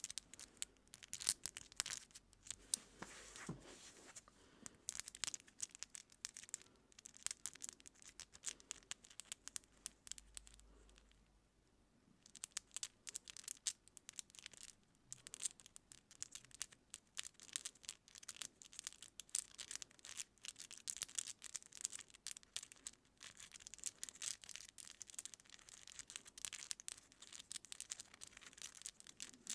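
Long acrylic nails scratching and picking through hair at the scalp, close to the microphone, with two layered tracks of the same action: a dense run of quick crackles and rustles, with a brief lull about ten seconds in.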